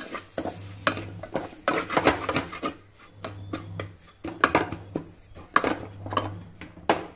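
Wooden spatula stirring and scraping onion-tomato masala around a metal cooking pot: a run of quick, irregular scrapes and knocks against the pot, over a steady low hum.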